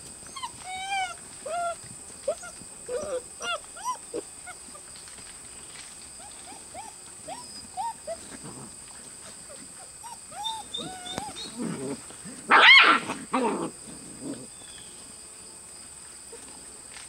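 A litter of seven-week-old German Shepherd puppies yipping and squealing in many short, high calls as they tussle over a rag toy, with one much louder yelp about three-quarters of the way through.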